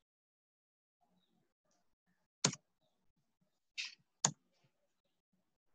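Sharp clicks at a computer while code is being edited: two loud ones about a second and a half apart, a softer, hissier click just before the second, and another click at the very end.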